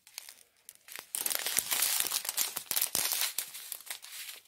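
Small clear plastic zip-lock bags of diamond-painting drills crinkling as they are handled, starting about a second in after a brief near-quiet moment.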